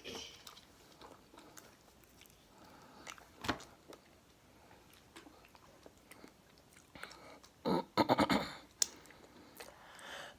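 Close-up chewing of chicken wings: soft, irregular wet mouth noises and small clicks, with a louder run of chewing about eight seconds in.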